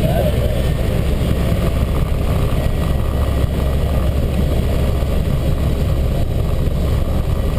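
Light propeller aircraft's engine and propeller running steadily, heard inside the cockpit as a constant low drone.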